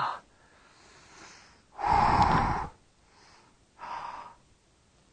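A man breathing hard: a loud, rough exhale about two seconds in, then a faint breath and a softer one near four seconds. It is the heavy breathing of a climber worn out at high altitude.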